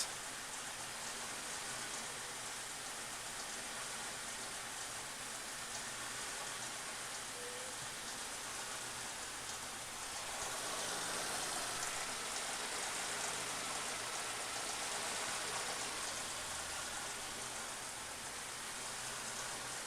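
Suzuki Grand Vitara's 2.5-litre V6 running at idle, heard as a steady hiss with a faint low hum underneath, a little louder from about ten seconds in. The engine has a misfire on cylinder 2 that is being diagnosed.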